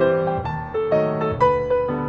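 Background piano music: a melody of notes changing every half second or so over held chords.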